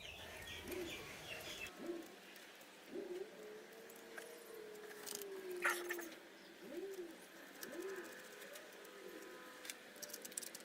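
A bird cooing in low, repeated rising-and-falling notes, with one long drawn-out note in the middle, and a few faint chirps at the start. Light clicks throughout, with a sharper knock about halfway through.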